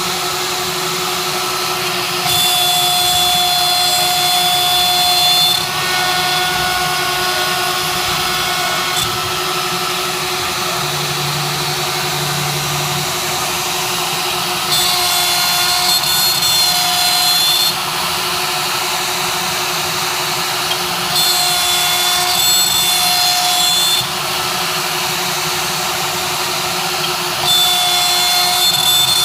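CNC machine running, with a steady hum under repeated louder spells of about three seconds, each carrying a higher whine, as the tool cuts or moves through its passes.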